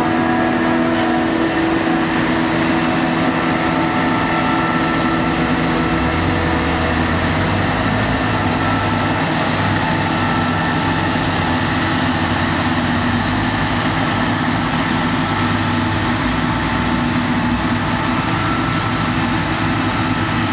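Claas Jaguar 850 forage harvester running under load while chopping maize: a steady engine drone with several constant whining tones, one of them high-pitched. A deeper rumble joins about six seconds in.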